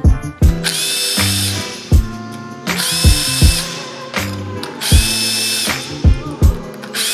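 Cordless drill/driver spinning bolts out of a 6.0L Powerstroke diesel cylinder head in three short bursts of about a second each, a high motor whine, over background music with a steady beat.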